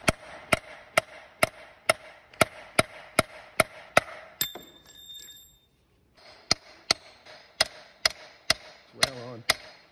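Hammer blows on a steel pin punch, about two a second, each with a metallic ring, driving a seized, heat-loosened bearing collar off a shaft through its grub-screw holes. The blows pause for about two seconds midway, and the blow before the pause leaves a high ringing tone.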